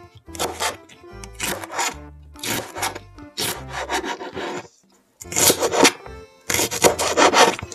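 Chef's knife slicing through green hot peppers and then green onion on a plastic cutting board: a series of crisp cutting strokes on the board, about two to three a second. After a brief break about five seconds in, the strokes come faster and louder.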